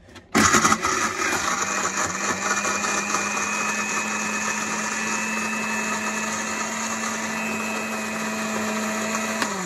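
Electric kitchen grinder switched on, grinding torn pieces of roti: it starts suddenly with a loud rattle of the pieces for the first half-second, then runs at a steady hum. Just before the end it is switched off and the motor starts winding down, its pitch falling.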